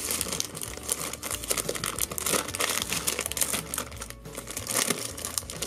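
Glossy plastic blind-bag wrapper of a Batman Power Play game card pack being handled and pulled open by hand, crinkling in a dense run of crackles.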